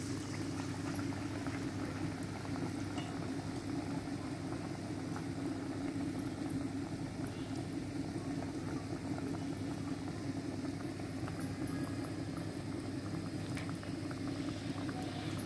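Palm-fruit fritters (tati garelu) deep-frying in hot oil in a blackened iron wok: a steady bubbling sizzle with fine crackles.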